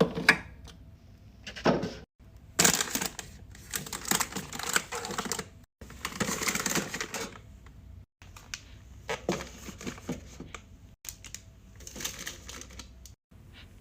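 Clicking and clattering of drink bottles, cans and plastic containers being handled and set into a mini fridge during restocking. It comes in several short bursts that stop abruptly.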